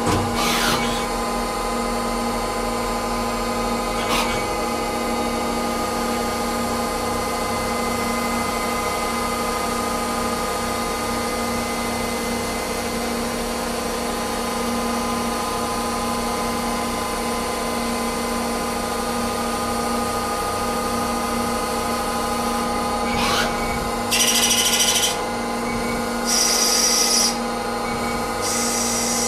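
Nomura NN-32YB2 CNC lathe running steadily while turning brass bar stock, a hum of several steady tones with brief sweeps in pitch near the start, about four seconds in and a few seconds before the end. Three louder hissing bursts of about a second each come near the end.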